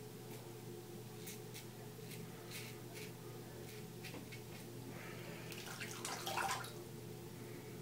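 Faint short scraping strokes of a razor cutting lathered stubble, then, about five seconds in, a louder burst of water splashing as the razor is rinsed. A steady low hum runs underneath.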